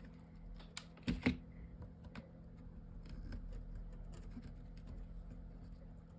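Light clicks and taps from paper and chipboard pieces being handled and pressed together while glued, with a louder pair of taps about a second in.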